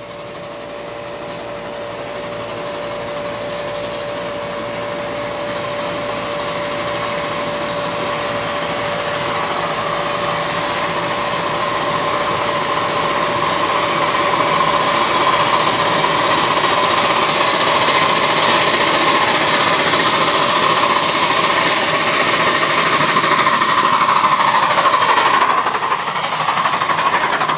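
Two 1.5-inch-scale live-steam ALCO Northern locomotives working a loaded riding train, their exhaust chuffing growing steadily louder as they approach and loudest as they pass close by near the end.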